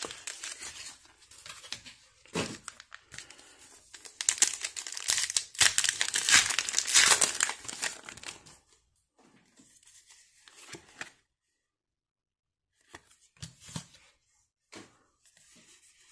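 Foil wrapper of a Pokémon booster pack being torn open and crinkled, loudest a few seconds in. After about eight seconds it gives way to a few short, faint rustles of the cards being handled.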